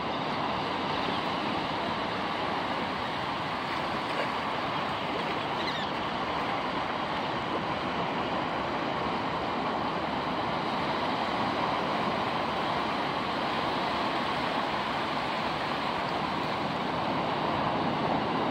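Ocean surf: small waves breaking and washing up over the shallow beach in a steady, even rush.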